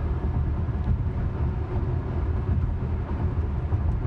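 Steady low rumble of tyre and road noise heard inside a Tesla electric car's cabin, cruising at highway speed of about 59 mph.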